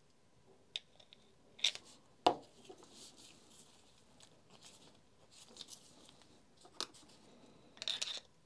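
Sharp metal clicks and clinks as an impact driver's hammer assembly is worked in a gear puller and prodded with a screwdriver. There are a few separate clicks, the loudest about two seconds in, and a quick run of clinks near the end, with faint handling noise between.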